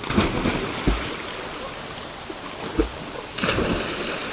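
Small river's current rushing over rocks into a pool, a steady wash of water noise. Two brief louder surges of noise, one just after the start and one about three and a half seconds in, and two dull low thumps.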